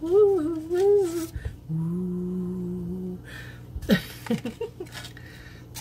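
A woman humming a short wordless tune: a couple of wavering notes, then one held low note, then a few brief sliding sounds. A few clicks of a plastic clamshell package come near the end as chives are pulled out.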